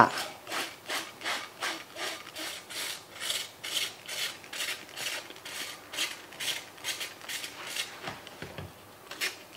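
Trigger spray bottle squirting homemade dish cleaner onto a greasy plate, pumped rapidly about two to three times a second, with a brief pause near the end.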